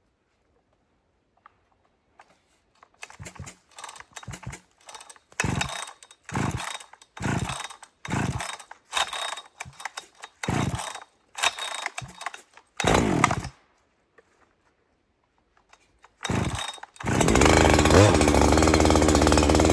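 Large chainsaw being pull-started: about a dozen short pulls on the starter cord, roughly one a second, then after a pause the engine catches near the end and runs steadily.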